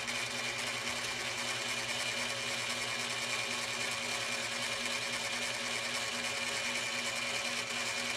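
Cowells 90 ME lathe running with no load, its steel back-gear and auto-traverse gear trains meshing in a steady whir.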